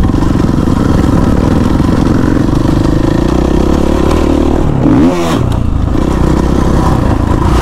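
Dirt bike engine running steadily under way. About five seconds in, its pitch briefly dips and swings back up.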